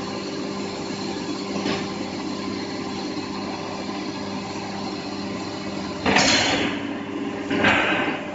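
Hydraulic deep-drawing press's pump unit running with a steady hum. About six seconds in, two loud hissing rushes follow one another, each lasting about a second.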